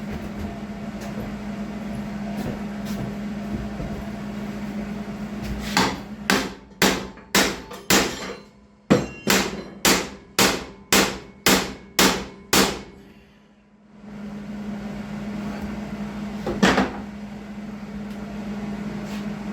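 A big hammer striking metal in a run of about a dozen blows, roughly two a second, each ringing briefly, with one more blow a few seconds later. A steady low hum runs underneath.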